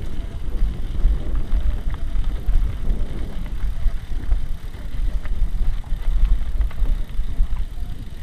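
Vehicle driving over a rough unpaved track: a loud, uneven low rumble.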